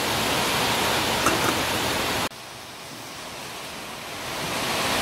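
Large aluminium pot of chicken soup at a rolling boil on a gas stove: a steady hiss of bubbling water, with a couple of faint clicks about a second in. The hiss drops suddenly just after two seconds and builds back up near the end.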